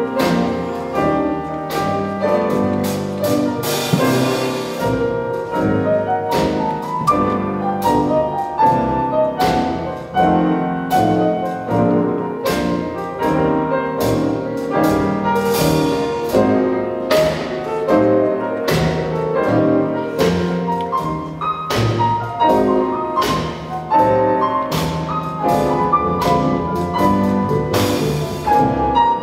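Small jazz combo playing live: piano to the fore over upright bass, archtop guitar and a drum kit with cymbal strokes.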